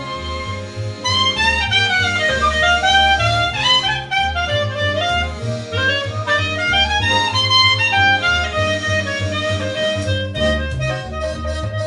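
Live instrumental jazz-style tune: a reedy lead that matches the accordion named in the line-up plays fast melodic runs that climb and fall, over a steady, pulsing bass line.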